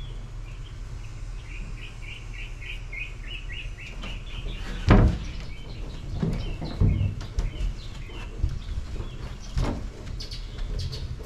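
A songbird singing a quick run of short, evenly repeated chirps for the first few seconds, with a few more higher chirps near the end. Several knocks are heard, the loudest a thump about five seconds in.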